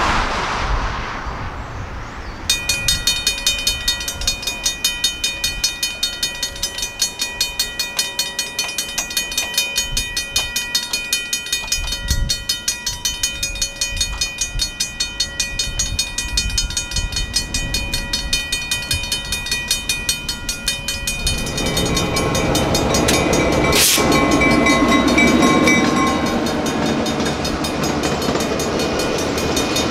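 A railroad grade-crossing bell starts ringing about two seconds in, with rapid, even strokes and ringing overtones. About two-thirds of the way through, a train arrives and passes with the rumble and clatter of its wheels on the rails while the bell keeps going.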